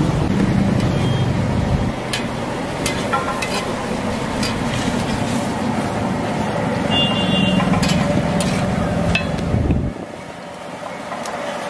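Steady low motor-like rumble of a roadside food stall, with scattered sharp clicks and a few short high beeps. The rumble drops away suddenly near the end.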